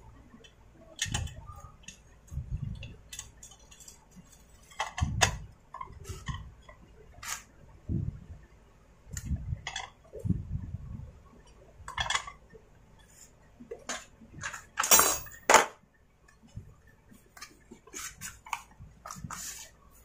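Hands working on a Stihl MS250 chainsaw: scattered clicks, taps and low knocks of its plastic housing and controls, with small metal clinks. The loudest is a short clattering rattle about fifteen seconds in.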